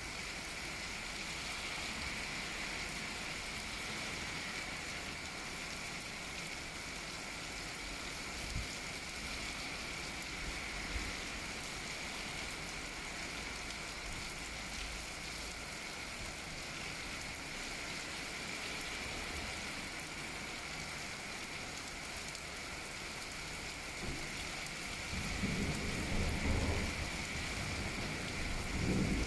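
Steady rain falling, with a low rumble of thunder rolling in during the last few seconds.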